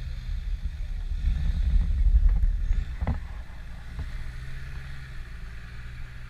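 Engine of a second-generation Range Rover (P38) running as the 4x4 crawls up out of a muddy rut at low speed. It is a low rumble that swells to its loudest about two seconds in, then eases off.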